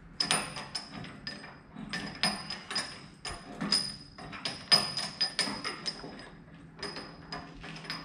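Steel tailgate latch and bracket clinking and tapping against a dump truck's steel tailgate as they are held and shifted into position: many sharp metallic clicks with a short high ring, coming irregularly, with a brief pause about six seconds in.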